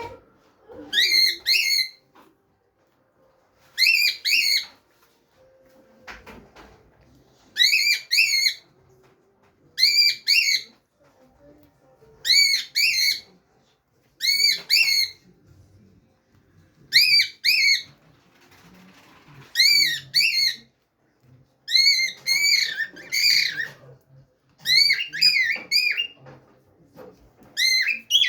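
Cockatiel whistling: about a dozen short, rising-and-falling whistled phrases, each repeated after a pause of a second or two.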